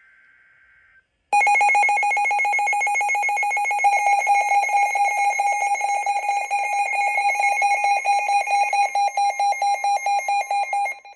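Emergency Alert System attention signal: a brief faint buzzy data burst of the alert header, then about a second in a loud, rapidly pulsing electronic alarm tone that drops sharply in level near the end.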